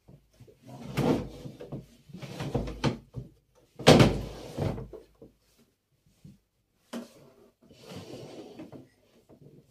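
Household cleaning noises: a series of knocks and clatters as things are handled and set down, the loudest knock about four seconds in, with softer shuffling and rustling later.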